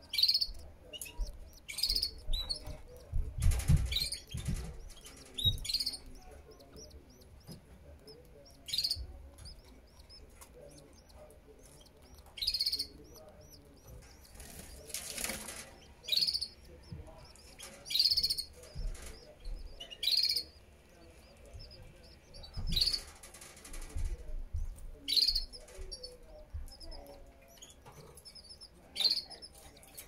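Canary nestlings begging: short bursts of thin, high chirps, repeated every one to four seconds, while the adult canary feeds them at the nest. Rustling and low bumps from the adult moving against the nest and the microphone come between the chirps, loudest about four seconds in.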